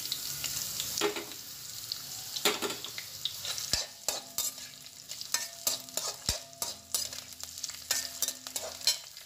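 Sliced onions sizzling in hot oil in a steel kadai, with a perforated steel skimmer spoon scraping and clinking against the pan as they are stirred. The sizzle is a steady hiss under many irregular clicks from the spoon.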